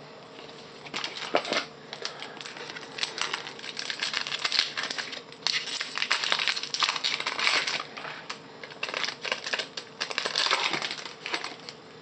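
A trading-card pack wrapper being handled and torn open, a dense run of crinkling and crackling with sharp clicks. It starts about a second in and dies away near the end.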